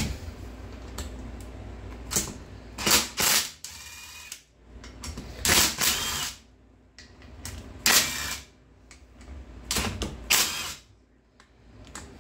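A cordless DeWalt driver backing out the bolts of the gearbox cover on a GY6 150cc scooter engine case, in a series of short bursts a second or two apart, each with a brief whirring spin-up and wind-down.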